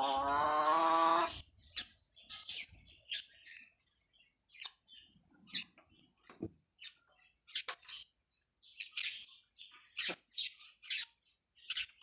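Birds chirping, with short high calls scattered throughout. In roughly the first second and a half, a louder steady pitched call sounds once.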